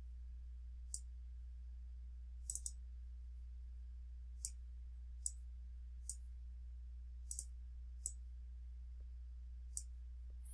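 Computer mouse clicking about ten times, unevenly spaced and sometimes in quick pairs, as wire ends are dragged and placed in a circuit simulator, over a faint steady low hum.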